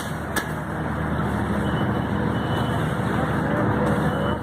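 A vehicle engine running steadily, a low rumble under a continuous wash of noise, with a single short click about half a second in.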